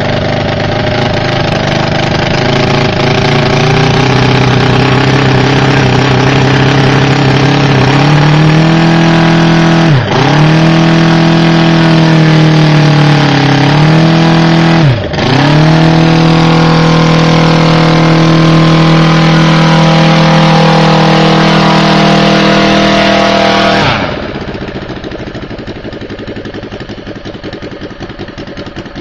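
VT 85 2R 85cc inline-twin four-stroke gasoline model aircraft engine running with its propeller, speeding up over the first several seconds, dipping sharply and recovering twice around the middle as the throttle is blipped, then holding steady at high speed. Near the end the sound drops suddenly to much quieter, low-speed running.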